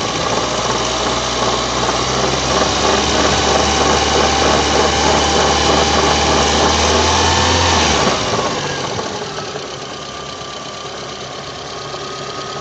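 VAZ-2109 engine running at slightly raised revs with a rattle from its alternator, then settling back to a quieter idle about eight seconds in. The rattle appears only above idle; the owner first suspects the bearings of the nearly new alternator, and later finds its lower mounting bolt has worked loose.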